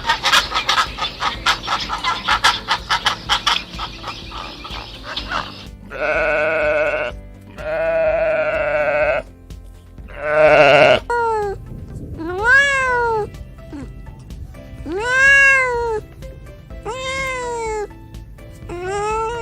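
A string of animal calls. First comes rapid bird chirping for about six seconds. Then there are three long, quavering bleats, and after that a cat meowing over and over, each meow rising and falling in pitch.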